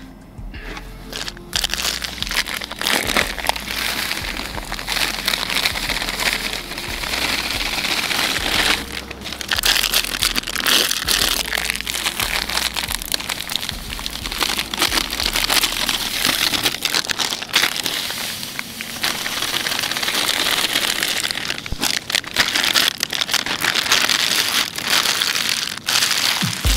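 Plastic groundbait bags crinkling and rustling as dry feeder bait mix is poured from them into a plastic bucket, the crumbly mix hissing as it falls.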